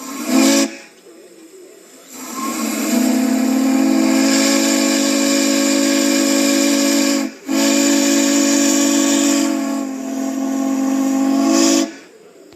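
Steam train whistle blowing a chord of several steady tones over a hiss of steam: a short toot, then two long blasts separated by a brief break.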